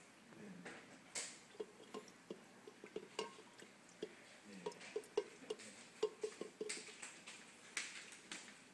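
Faint, irregular small splashes and plops of water in a bucket as a hand moves through it, with light ticks several times a second.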